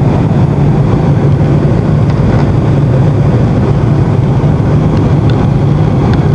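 Steady in-flight cabin noise inside an Airbus A320 airliner: engines and rushing airflow, with a strong low hum.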